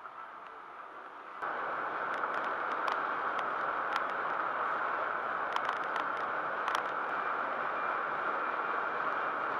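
Steady road and wind noise of a car cruising on a highway at about 100 km/h, heard from inside the cabin, with scattered light ticks and rattles. The noise becomes suddenly louder about a second and a half in.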